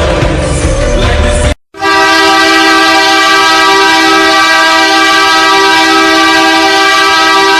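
Music with singing that cuts off abruptly about a second and a half in; then an ice hockey arena goal horn sounds one long, loud, steady blast.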